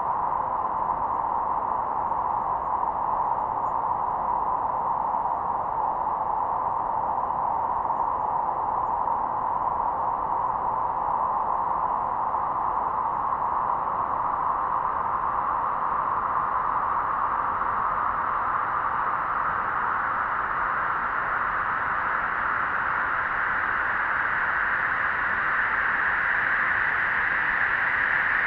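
Storm wind blowing as a steady, hissing whistle whose pitch rises slowly and evenly throughout, with a faint steady low tone beneath it.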